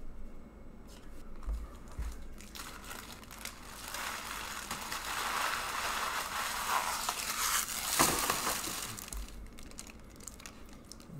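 Plastic or foil wrapping being crinkled and crumpled for several seconds, starting about three seconds in, with one sharp crack just before the end of it.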